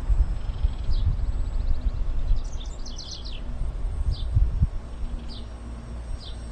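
Wind buffeting the microphone in a low, gusty rumble, while a small bird chirps short high notes several times, with a quick run of chirps two to three seconds in.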